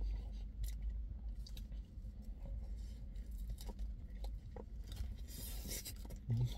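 A man chewing a mouthful of beef burger, with scattered small clicks, over a low steady hum inside a car. A short burst of hiss comes about five to six seconds in.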